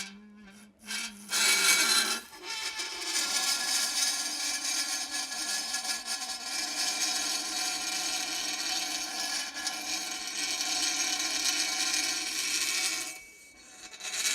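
Metal pressed against dry ice, vibrating as the ice sublimates and giving a steady metallic squeal made of several high tones at once, which shift as the metal is moved. It starts about a second in and stops about a second before the end.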